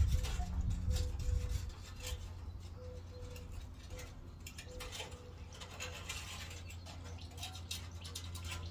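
Scattered light clicks and scrapes of steel mechanic's wire being fished through the sheet-metal channel of a pickup's bed side, with a low rumble in the first two seconds. A dove coos softly in the background.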